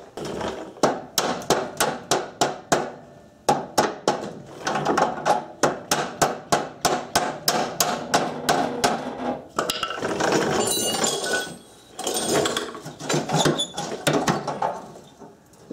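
A string of sharp metal-on-metal hammer blows on the exhaust, about two to three a second with short pauses, knocking an old catalytic converter loose from a Subaru exhaust.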